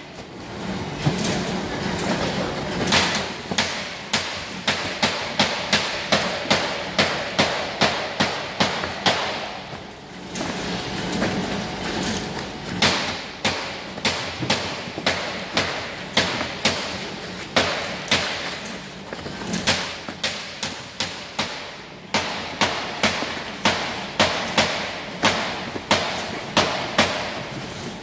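Sharp knocks and thuds from broccolini being handled at metal packing tables, coming about two to three a second with short lulls.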